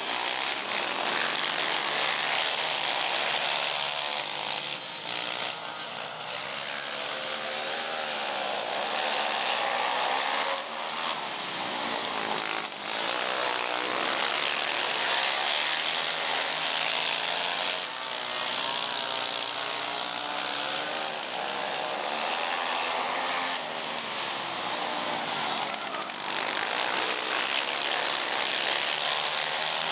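Several racing ATV engines revving hard and backing off as the pack laps the track, their pitches rising and falling and overlapping.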